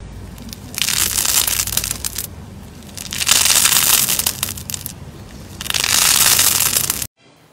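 Slime being squeezed and pressed by hand, crackling and popping in three loud bouts of about a second and a half each, with quieter crackling between them; it cuts off abruptly near the end.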